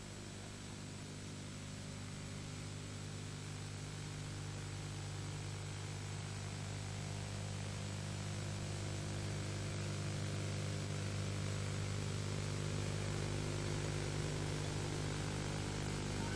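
A steady low hum with a faint hiss, slowly growing louder, with no distinct events.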